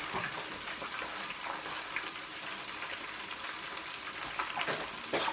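Whiting fillets deep-frying in hot oil: a steady sizzling hiss with small scattered crackles.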